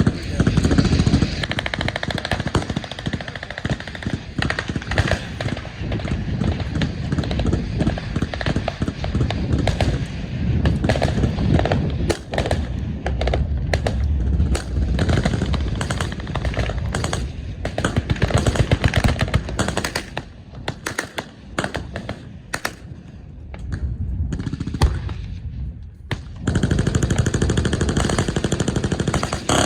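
Automatic gunfire from several machine guns firing long bursts at once, the shots running together. About two-thirds of the way through it thins to scattered single shots and short bursts, then heavy continuous fire starts again near the end.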